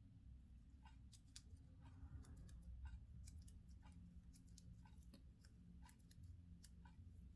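Near silence: faint room hum with a few scattered, irregular light clicks.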